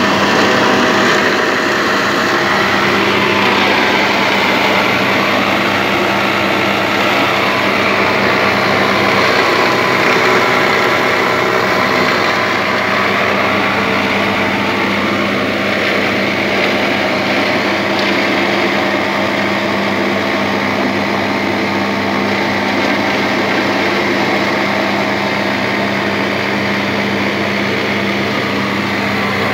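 Motor-driven pepper and tomato paste machine running steadily, crushing red peppers and straining the pulp, with a constant even hum under a busy churning noise.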